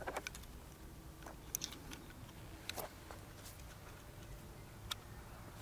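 A handful of faint, sharp clicks and taps from cardboard firework packs being handled, over a low steady background.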